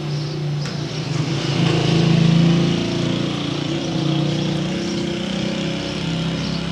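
A steady, low-pitched motor hum that swells about two seconds in and then settles.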